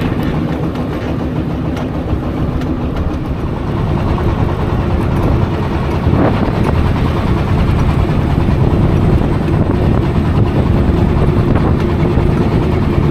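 Small river boat's engine running steadily as the boat moves out along the river: a continuous low drone with a faint steady hum above it.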